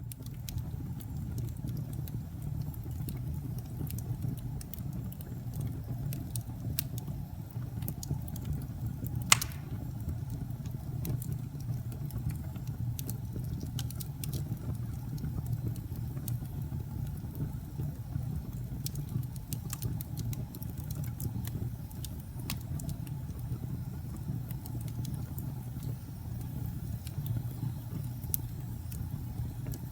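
Wood logs burning in a fireplace: a steady low roar of the fire with scattered sharp crackles and pops, the loudest pop about nine seconds in.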